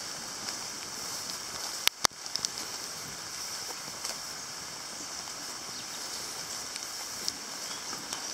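Steady rain falling on foliage, an even hiss, with two sharp clicks about two seconds in.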